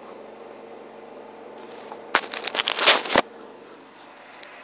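Handling noise from a phone being picked up: loud rustling and scraping right on its microphone for about a second midway, then a few faint clicks. Before that, only a steady low hum.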